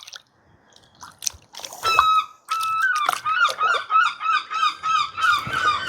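Seagulls yelling: a single call about two seconds in, then a long run of quick repeated calling notes, about three or four a second.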